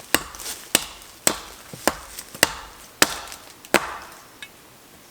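Seven sharp chopping strikes on wood, about one every half second or so, stopping a little before four seconds in. They fall on a partly cut tree that is hung up and still holding on by a little wood.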